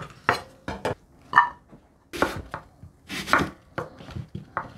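Kitchen knife slicing through apple pieces on a wooden cutting board: a crisp cut and a knock of the blade on the board, repeated at irregular intervals roughly a second apart.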